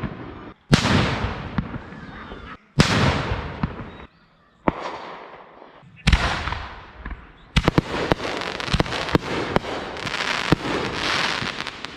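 Consumer fireworks going off: three loud bangs, each trailing into a fading hiss, then from about seven and a half seconds a fast run of crackling pops over a steady hiss.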